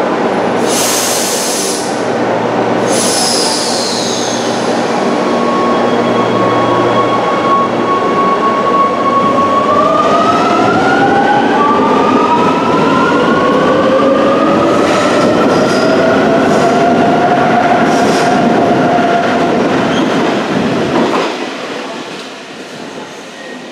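A Rome Metro electric train pulling out of an underground station. Two short hisses come near the start, then the motor whine rises in pitch in several steps as the train picks up speed, over heavy wheel-and-rail rumble. The sound drops away near the end as the last car leaves.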